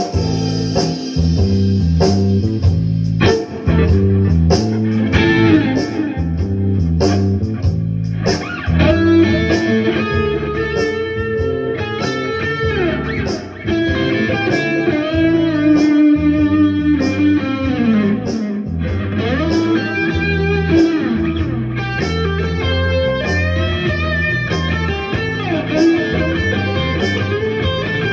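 Blues played on electric guitar, with single-note lines that bend and slide in pitch, over a steady bass line and a regular beat.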